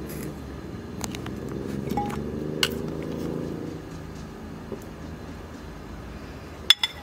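A metal ladle clinking against a stainless steel pot while pieces of boiled meat on the bone are lifted out: a few sharp clinks, with two close together near the end, over a low steady hum in the background.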